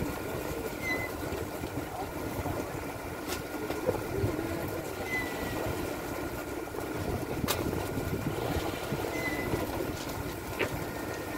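Inboard engine of a purse-seine fishing boat running steadily, with crew voices in the background and a few sharp knocks.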